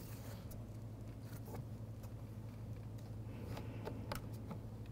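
Faint, scattered light clicks and scrapes of a prying tool working under a plastic interior door trim piece, over a steady low hum.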